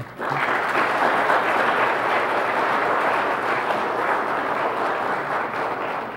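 Congregation applauding: steady, dense clapping that starts at once and tails off near the end.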